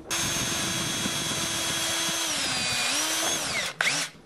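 Electric drill running at a steady speed. About two seconds in its pitch sags as it bogs down under load, picks up briefly, then winds down and stops near the end.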